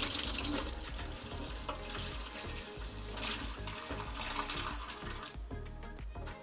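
Kitchen tap running into a stainless steel sink while hands are rubbed and rinsed under the stream, the splashing easing off near the end.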